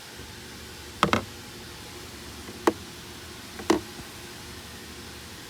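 Three sharp plastic clicks, roughly a second apart with the first one doubled, from the cabin air filter cover in a Honda Pilot being pushed and handled.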